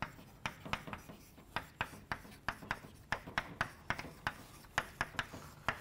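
Chalk writing on a blackboard: an irregular run of short taps and scrapes as a word is written out.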